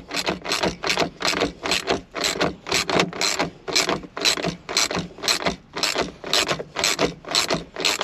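Socket ratchet clicking in quick repeated strokes, about three a second. It is doing up the handbrake cable adjusting nut to take up slack in the new cable.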